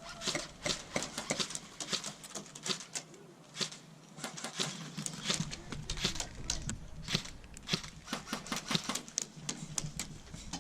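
Airsoft gunfire during a firefight: a steady, irregular run of sharp clicks and snaps from shots and BBs striking nearby, several a second, some louder than others.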